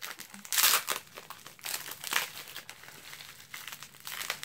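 Plastic bubble wrap crinkling as it is handled, in several short rustling bursts, the loudest about half a second in.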